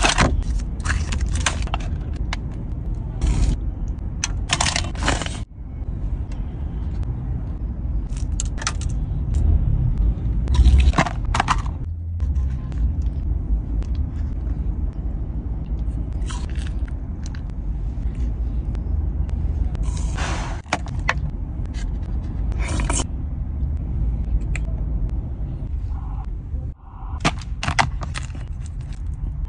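Eating and handling noises: a foil-lidded dessert tray and plastic containers crinkling and a plastic spoon scraping, in short bursts every few seconds. Underneath is a steady low rumble inside a car.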